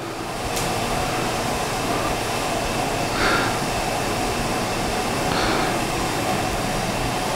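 A steady rushing, fan-like noise of moving air. It swells in during the first second and then holds level.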